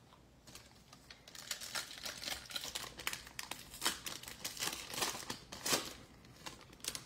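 Foil wrapper of a Chronicles football card pack crinkling and tearing as it is ripped open by hand, a dense crackle that starts about half a second in and runs on until just before the end.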